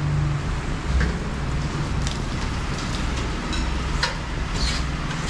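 Steady low rumbling background noise with a few faint clicks about one, two and four seconds in.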